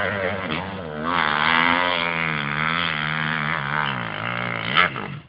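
Dirt bike engine revving under load on a steep hill climb, its pitch rising and falling as the throttle is worked, with a sharp knock near the end.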